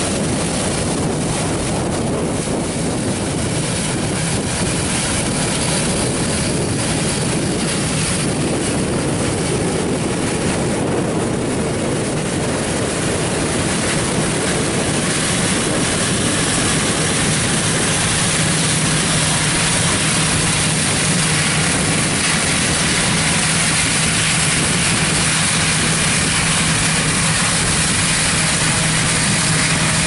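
John Deere S660 combine running under load while cutting soybeans with a draper head: a steady mix of engine and threshing machinery noise, with a low hum that comes in about halfway through as the combine passes and moves away.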